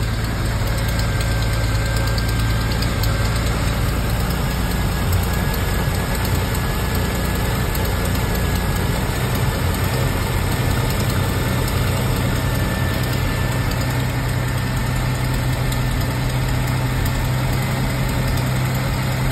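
Triumph 2.5-litre straight-six engine idling steadily at an even speed, just started after its distributor was reclocked one notch and running smoothly on all six cylinders, still cold with the timing not yet reset.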